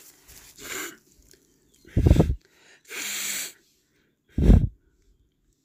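A person breathing close to the microphone: two short, loud puffs of breath hit the mic about two and a half seconds apart, with a longer, steady exhale between them.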